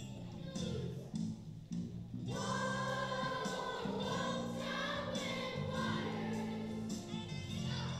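Children's choir singing a song with sustained instrumental accompaniment underneath; the voices thin out briefly early on and come back in full a little over two seconds in.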